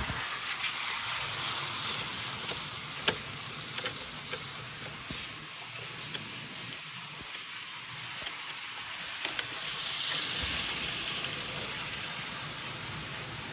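Toy train running along its track: a steady hiss of wheels and motor with scattered clicks, one sharper click about three seconds in, and the hiss swelling briefly around ten seconds in.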